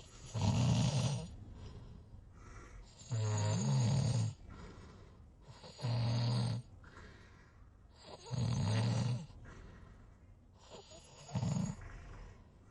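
Snoring in a steady rhythm: five loud snores, one about every two and a half to three seconds, with quieter breathing between them.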